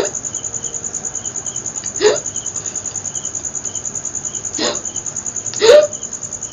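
A woman hiccupping four times, roughly two seconds apart, the last one the loudest. Under it a cricket trills steadily, a high rapid pulsing.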